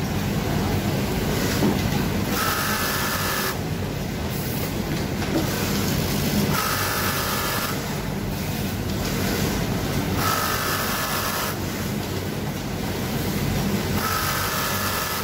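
Brother twin-needle industrial lockstitch sewing machine topstitching a waistband, running in repeated runs of a few seconds with short pauses between, over a steady low hum of machinery.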